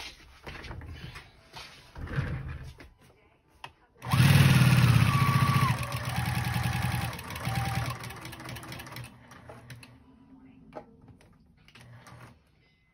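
Electric sewing machine running fast, stitching through a quilt-as-you-go stack of denim, batting and flannel. It starts suddenly about four seconds in, with a rapid, even stitching rhythm, eases after a couple of seconds and stops around nine seconds. Fabric rustling and small handling clicks come before it.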